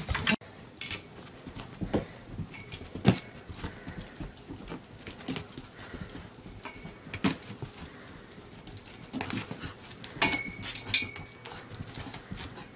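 A dog chasing its leash: scattered scuffles and knocks of paws and leash on the floor, with a couple of short high squeaks about a second in and again near the end.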